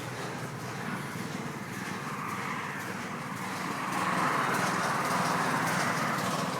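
Pressure washer running steadily, its spray making an even hiss that grows louder about four seconds in.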